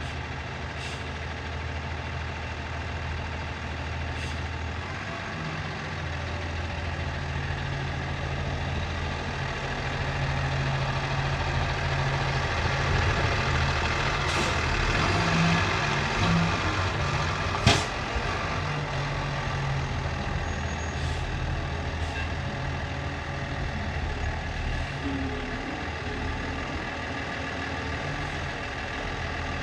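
Engine of a bale squeeze loader running under working load while loading hay bales. It grows louder and busier around the middle, with one sharp knock about two-thirds of the way through and a few lighter clicks elsewhere.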